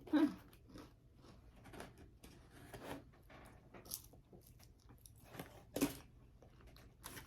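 Close-up chewing and biting of pizza, with irregular crunches from the crust, the loudest just after the start and again shortly before the end.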